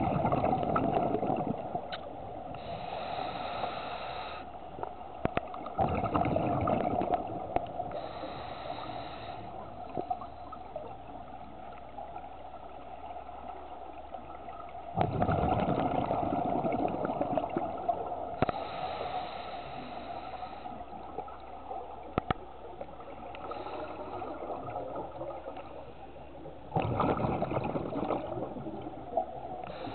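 Scuba diver breathing through a regulator underwater. Each exhale sends out a rushing, gurgling burst of bubbles, and each inhale draws a thinner hiss, in slow breaths several seconds apart.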